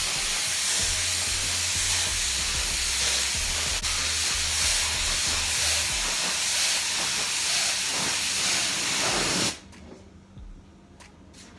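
Compressed-air gravity-feed spray gun spraying green paint: a steady, loud hiss of air and atomised paint that cuts off abruptly near the end when the trigger is released.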